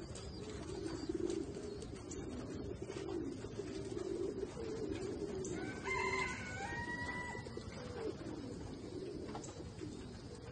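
A flock of white release doves (white homing pigeons) cooing, a low rolling coo going on continuously. About six seconds in, one louder, higher-pitched bird call lasts about a second and a half.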